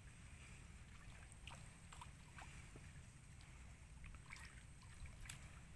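Near silence: a faint low rumble with a few soft drips and light splashes of water from a man wading waist-deep as he handles a fishing net, and one sharper click about five seconds in.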